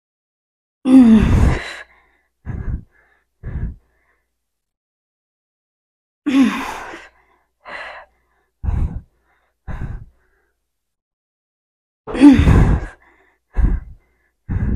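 A woman's heavy, effortful breathing while doing split squats with heavy dumbbells. A loud, voiced exhale like a sigh comes about every six seconds, once per slow rep, and is followed each time by two short, sharp breaths.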